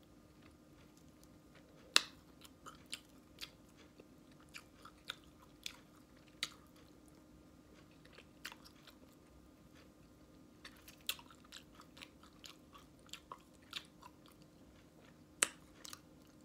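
Close-up eating sounds of a person chewing barbecued ribs, with irregular wet clicks and smacks of the mouth; the sharpest comes about two seconds in and another near the end.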